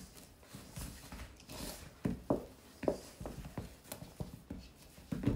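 Wooden spoon stirring stiff bread dough in a stainless steel mixing bowl: uneven knocks and scrapes of the spoon against the bowl, about two a second.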